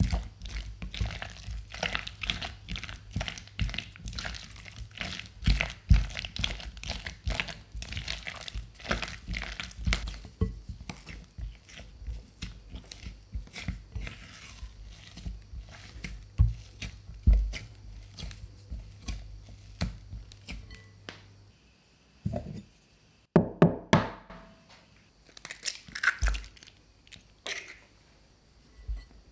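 Silicone spatula beating egg into thick churro dough in a glass bowl: sticky squelching and slapping strokes, several a second. After a short pause near the end come a few loud, sharp knocks as the next egg is cracked into the bowl.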